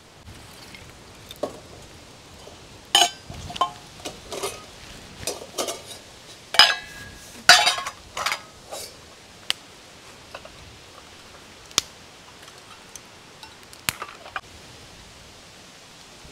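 Metal cookware and camping-stove parts being handled: a scattered series of sharp clinks and knocks, a few ringing briefly, which stop a couple of seconds before the end.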